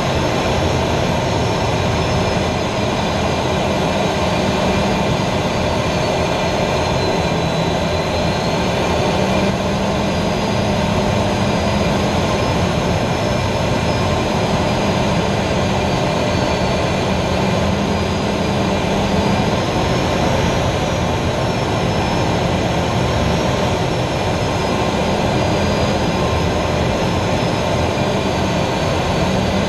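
Steady loud noise of an L-29 Delfín jet trainer in flight heard from inside its cockpit: the single turbojet running together with the rush of air over the canopy. A faint high whine in the engine sound drifts slowly up and down in pitch.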